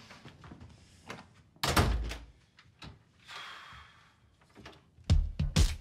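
A wooden apartment door slammed shut, one heavy thud about a second and a half in. Near the end a drum beat starts.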